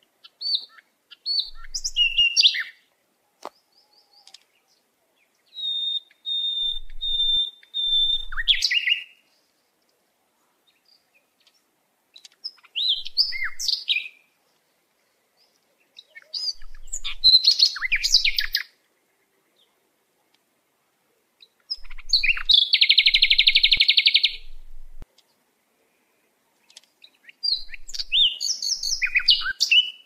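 Songbird song in short separate bursts of varied high chirps and whistled phrases, with silent pauses between them. One burst is a steady held whistle and a later one is a dense buzzy trill.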